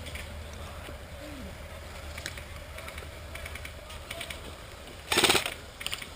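An airsoft gun fires a short full-auto burst about five seconds in: a quick, rapid rattle of shots over a faint steady background, with a few light clicks before it.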